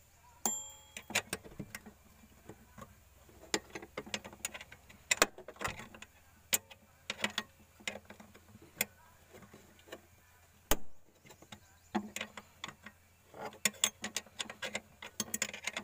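Open-end wrench clicking and clinking against bolt heads and the surrounding metal as the fuel pump's mounting bolts are worked loose a bit at a time. One clink about half a second in rings briefly, and the clicks come quicker near the end.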